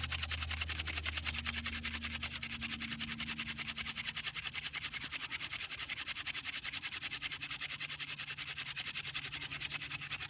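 Yucca hand-drill spindle being spun back and forth between the palms in a yucca baseboard notch, a fast, even rhythmic rubbing of wood on wood as friction builds toward an ember.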